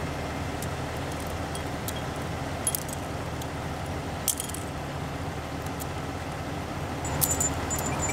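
Metal climbing gear clinking and jingling: a couple of single clinks, then a cluster of jingles with a short high ringing note near the end. A steady engine idles underneath.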